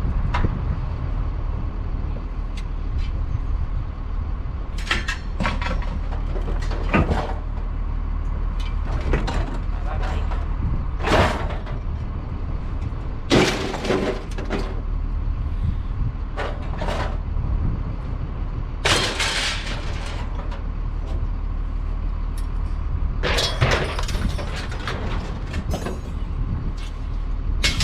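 Vehicle running with a steady low rumble, with a handful of short, louder noises breaking in over it every few seconds.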